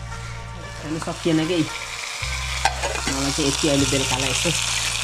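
Pieces of pork sizzling as they fry in an aluminium pan on a gas stove, the hiss building about a second in.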